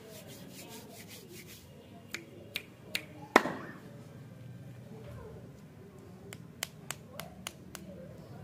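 Sharp taps and clicks from hands handling wrapped lollipops: four about two to three and a half seconds in, the last one the loudest, then a quicker run of about six near the end.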